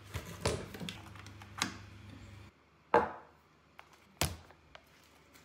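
A few knocks and clicks as a NutriBullet blender's cup is handled on its base on a wooden table, then a drinking glass is set down. The loudest knock comes about three seconds in, with a short ring. The blender motor is not running.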